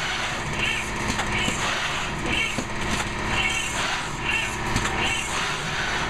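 Machinery running with a steady engine hum, with a higher-pitched sound repeating about once a second, the regular cycle of a working machine.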